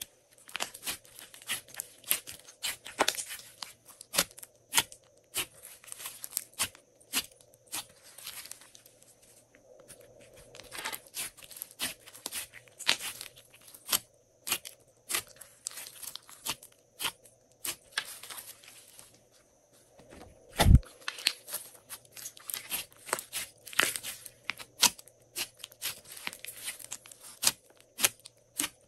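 Hands kneading and pressing glossy slime: runs of dense crackling and small pops as trapped air squeezes out of the folds, with short pauses between runs. One louder thump about two-thirds of the way through.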